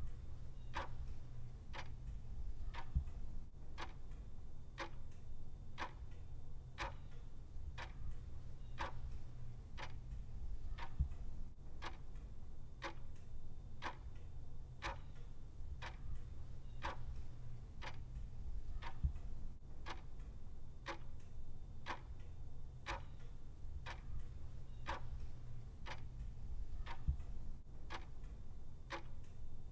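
Clock ticking steadily, about one tick a second, over a low steady hum.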